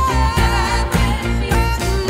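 Pop song playing: a singer's held note slides down over a steady bass beat.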